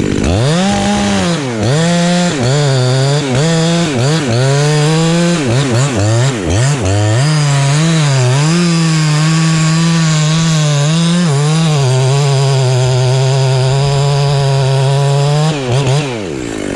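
Ported-muffler two-stroke chainsaw cutting into an ash tree at high revs, its pitch dipping and recovering again and again as the chain loads up in the wood. It then holds a steady pitch for a few seconds before dropping off near the end.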